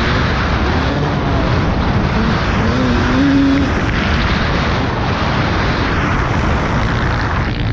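Yamaha YZ250 two-stroke dirt bike engine being ridden hard, its pitch rising and falling as the throttle opens and closes.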